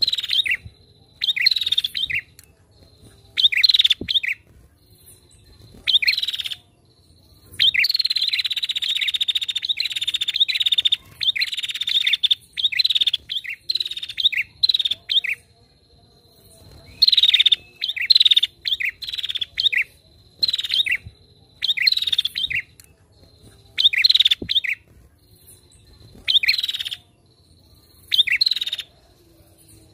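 Female prinia (prenjak) calling: short bursts of sharp, quick chirps repeated every second or two, with a longer unbroken rapid chattering run of several seconds in the first half.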